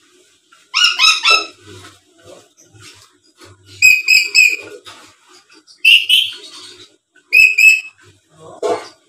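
Black-capped lory giving loud, shrill whistled calls in about five short bursts of quickly repeated notes, with brief pauses between them.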